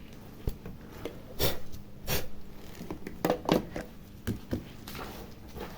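Scattered light clicks, taps and brief rustles from small parts and tools being handled on a repair bench.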